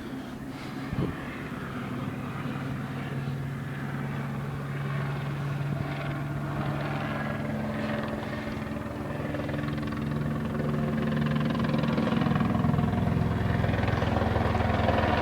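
A helicopter's engine and rotors running steadily, growing gradually louder.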